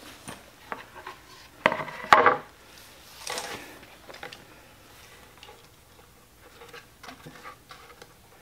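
Knocks and clatter of a wooden board and hand tools being moved about on a metal workbench, with the two loudest knocks about two seconds in, then quieter scattered handling sounds.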